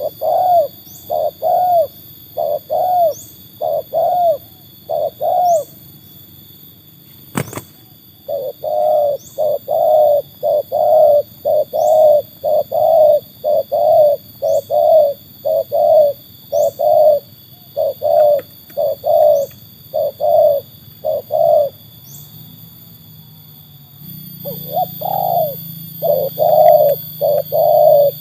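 Spotted dove (tekukur) cooing in long runs of quick repeated notes, pausing twice. A single sharp click about seven seconds in, and faint high chirps a few times.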